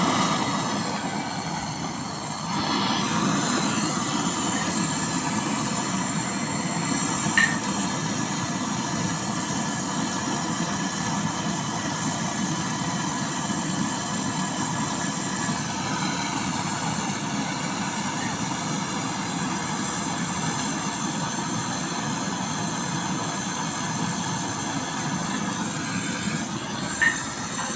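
Gas brazing torch flame hissing steadily as the filter drier is brazed into a refrigerator's copper refrigerant line; it comes on suddenly at the start.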